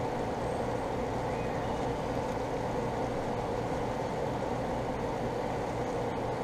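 A steady machine hum that stays even throughout, with no distinct knocks or clicks.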